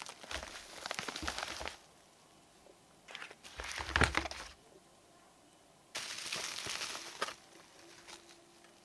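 Bubble wrap and plastic packaging crinkling and rustling as boxed cosmetics are unwrapped by hand, in three short bouts.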